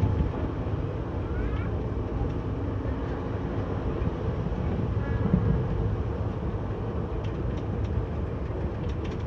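Express passenger train running steadily, heard from an open coach door: an even rumble of wheels on the track and rushing air, with a few sharp clicks near the end.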